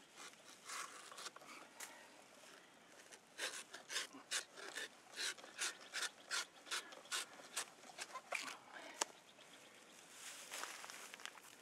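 A 12-inch Old Hickory butcher knife shaving and scraping the wood of a felled aspen log. The strokes come in a quick run of about three a second through the middle, with a few scattered strokes before and after.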